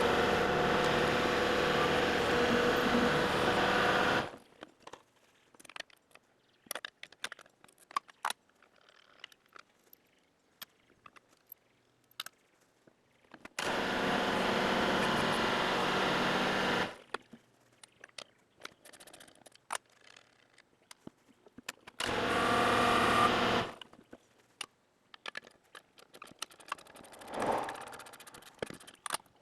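Kubota L3301 tractor's diesel engine running, heard in three stretches that start and stop abruptly. Scattered clicks and clinks of hand tools come between them.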